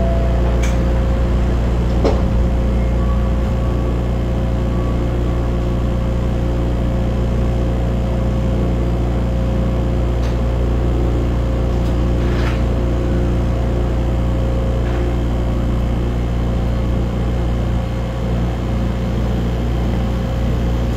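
Osaka Monorail train's electrical equipment and motors running with a steady hum, heard from inside the driver's cab, with a few sharp clicks. The train sets off from the station partway through.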